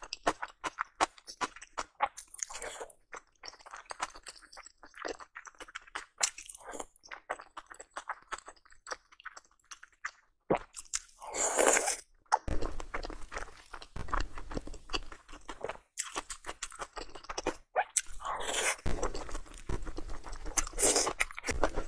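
Close-miked mouth sounds of eating spicy dumplings and pickled slices: steady chewing with many small crunches and wet clicks, and a few louder, longer noisy sounds of about a second each around the middle and near the end.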